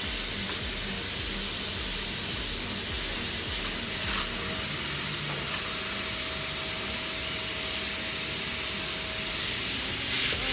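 Dust-extraction vacuum running steadily, an even hiss, as the car's bodywork is sanded. A faint steady tone joins in for a few seconds in the middle.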